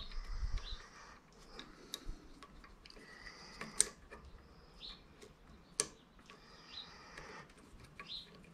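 Small clicks and ticks of hydraulic cylinder seal parts being handled and fitted by hand, with a few sharper ticks about 2, 4 and 6 seconds in, the loudest near 4 seconds.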